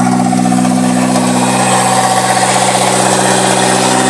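Toyota 4E-FTE turbo four-cylinder engine idling steadily and a little high on its first ever start, running with no exhaust system fitted.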